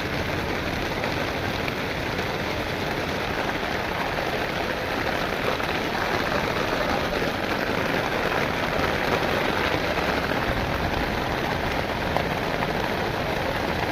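Heavy torrential rain pouring down in a steady, dense hiss.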